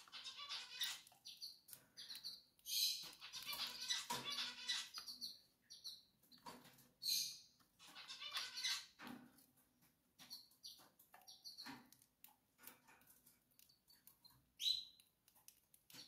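Caged canaries chirping in short, high-pitched notes, scattered irregularly, with a few soft knocks or rustles in between and one louder rising chirp near the end.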